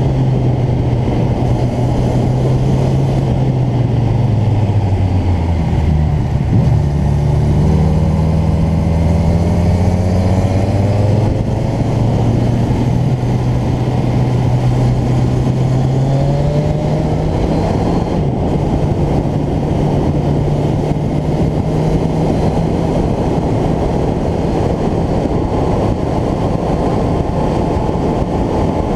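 Motorcycle engine running at road speed. Its note falls about four seconds in as the bike slows, stays low for several seconds, then climbs again and holds steady.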